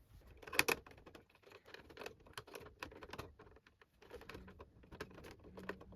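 Light, irregular clicks and taps of a screwdriver and hands working the screws and plastic casing of a Samsung Sky+HD satellite box, with a faint low hum coming in near the end.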